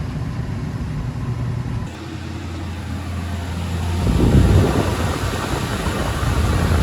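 Refrigeration condensing unit running with a steady low hum. The hum shifts about two seconds in, and a louder, rougher noise builds from about four seconds.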